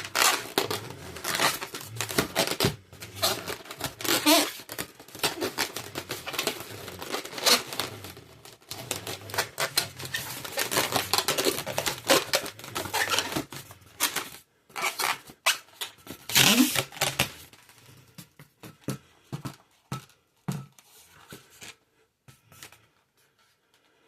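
Latex twisting balloons being handled, a dense run of rubbing, squeaks and crinkly clicks. It thins to a few scattered rubs and taps over the last several seconds.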